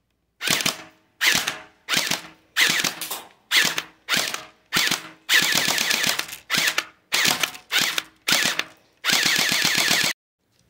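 Airsoft gun firing at point-blank range into a clear plastic clamshell package: about a dozen short bursts of rapid fire, with two longer bursts about five seconds in and near the end.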